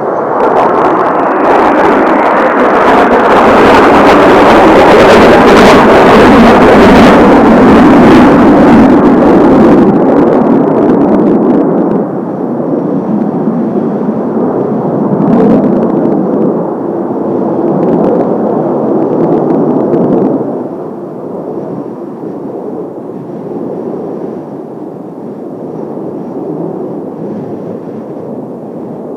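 Kawasaki T-4 jet trainers of the Blue Impulse team passing over, their turbofan engines loud: the jet noise swells within the first second, stays at its loudest for several seconds, eases, comes up again briefly, then drops off sharply about two-thirds of the way through to a quieter, steady distant jet sound.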